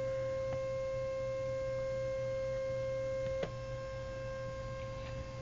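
Inkjet printer carriage's DC motor buzzing on pulse-width-modulated drive: a steady high whine with a low hum under it and a few faint clicks. About three and a half seconds in there is a click, and the buzz goes on quieter after it.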